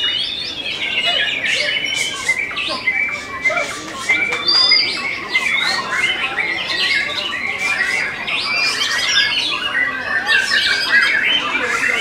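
White-rumped shamas singing, several at once: a dense, unbroken stream of rapid, varied whistles and sharp chattering notes.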